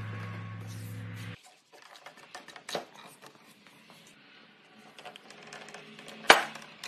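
A steady hum that cuts off suddenly about a second and a half in, then light knocks from a timber mortise-and-tenon joint being handled on a workbench, with one sharp, loud knock near the end.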